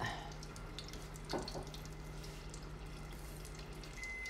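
Spring rolls deep-frying in hot oil: a steady sizzle with fine, irregular crackling as the oil bubbles around them.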